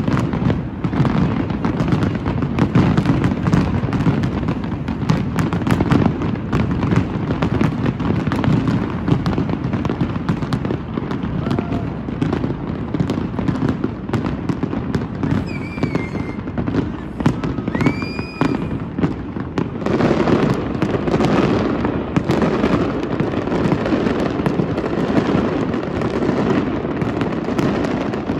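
Fireworks display in a continuous barrage: rapid booms and crackling bursts overlapping with a deep rumble, and a couple of short whistles near the middle.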